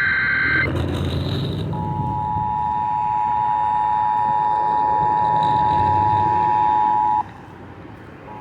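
Emergency Alert System broadcast over weather radio. The last SAME header data burst screeches for about half a second. Then comes a steady two-tone EAS attention signal, starting about two seconds in and held for about five seconds before cutting off suddenly, over radio static. This is the start of a Severe Thunderstorm Warning alert.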